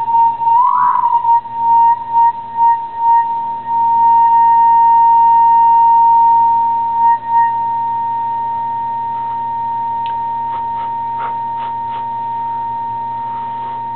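A steady high test tone passing through an Ibanez AD80 delay pedal cuts out and comes back several times in the first few seconds, then holds steady, with a short rising chirp about a second in. The dropouts come from the pedal's FET bypass switch shutting off because of leakage across the damp circuit board, which the repairer puts down to the last of the vapors burning off as it dries.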